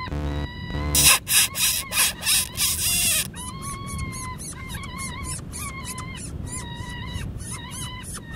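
Electronic predator caller playing an animal distress call: repeated high, whining cries, with a louder run of harsh pulsed squeals about a second in, then more whines over a fast clicking pulse. It is a lure meant to draw the coyote in close.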